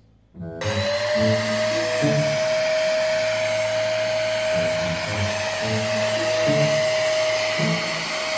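A stick vacuum cleaner switching on about half a second in, its motor whine rising briefly as it spins up and then running steadily with a loud rushing hiss.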